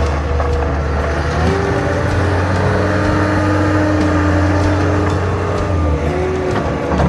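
Diesel engine of a 1999 Caterpillar 246 skid steer loader running under throttle. It revs up about a second and a half in, holds there, and eases back down near the end.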